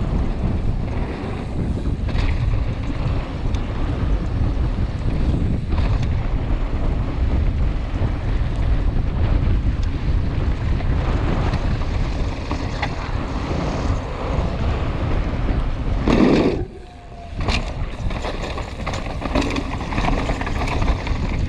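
Rushing wind on a helmet-mounted action camera's microphone during a fast mountain-bike descent on a dry dirt trail, with tyre noise and frequent knocks and rattles from a Yeti SB150 full-suspension bike. About three-quarters of the way through, the noise cuts out sharply for about half a second, then returns.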